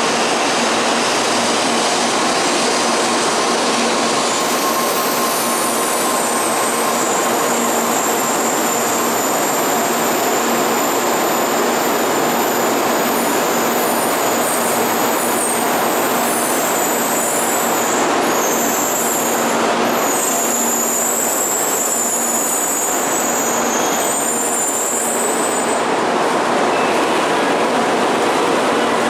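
N700-series Shinkansen train pulling slowly into the platform: a steady rolling rumble, with a high-pitched brake squeal from about four seconds in that fades out a few seconds before the end as the train comes to a stop.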